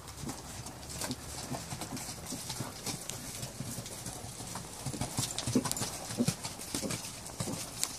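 Horse's hoofbeats on a sand arena as the ridden horse moves at trot or canter, a steady run of thuds that grows loudest about five to six and a half seconds in as the horse passes close.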